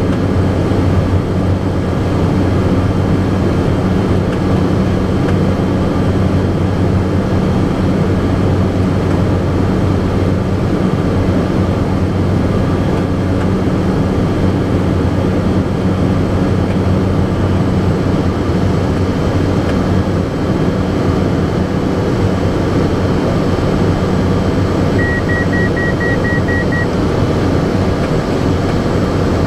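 Cessna 208B Caravan's single turboprop engine and propeller heard from inside the cockpit, a steady loud drone with an even hum. Near the end, a rapid series of short electronic beeps from the avionics sounds for about two seconds.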